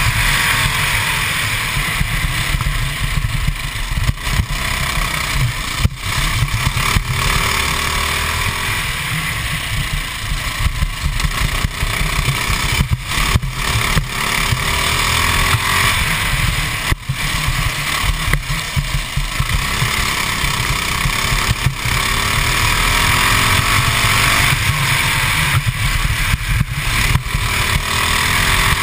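Modified 196cc Honda GX200-based single-cylinder four-stroke kart engine running hard on track, its note rising and falling as the kart accelerates and slows for corners, with wind rumbling on the onboard microphone.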